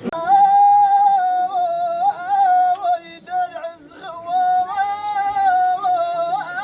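A high solo voice singing an ornamented Amazigh chant melody in long held notes with small turns and dips, pausing briefly about three and four seconds in.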